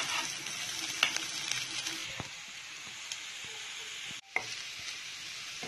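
Sliced onion sizzling in hot oil with fried garlic and ginger as it is stirred in the pan, with a few sharp knocks of the utensil on the pan; the sizzle is loudest in the first two seconds. After a brief break a little past four seconds, carrot strips sizzle as they are stirred in.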